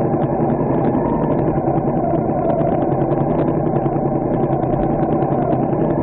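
A motor vehicle's engine idling steadily.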